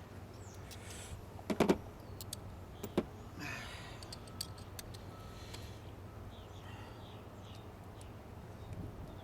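Hand tools and small parts handled while a door speaker is fitted: a few sharp clicks and knocks, the loudest about a second and a half in, and a brief rattle near the middle, over a steady low hum.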